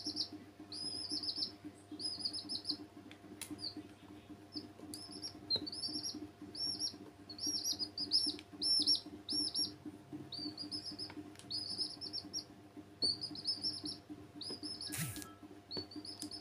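Baby chicks peeping steadily, a quick run of high arched chirps in short groups, over a steady low hum. A sharp click sounds about 15 seconds in.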